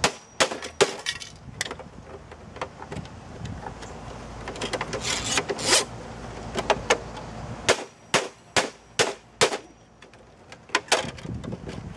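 A hammer striking the plastic case of an HP printer-scanner: sharp knocks at irregular intervals, about a dozen, with a quick run of closer knocks about five seconds in.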